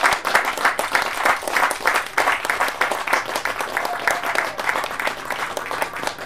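A small group of people applauding, dense irregular hand claps throughout.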